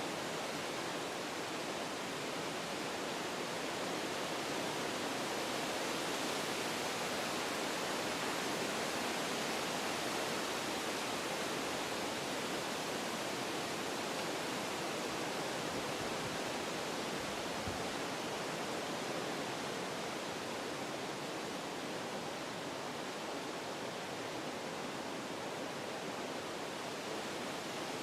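Wind blowing through forest trees: a steady rush of moving leaves and branches that swells slightly a few seconds in and eases a little later on, with one brief low thump about two-thirds of the way through.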